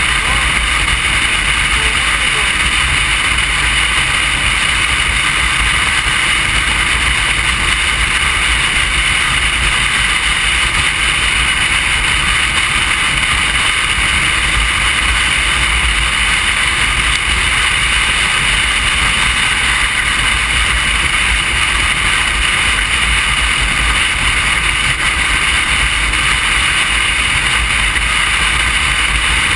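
Motorcycle riding at a steady speed: a loud, unbroken wind rush over the bike-mounted microphone, with the engine and tyre noise beneath it.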